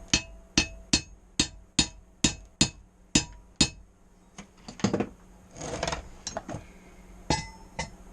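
Hammer striking steel, about nine quick ringing blows in the first three and a half seconds, then a few scattered knocks and a short scrape.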